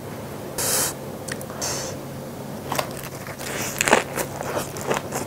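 A lettuce wrap being bitten into and chewed, with wet crunching and clicking mouth sounds that thicken about three to four seconds in. Two short rustles come in the first two seconds.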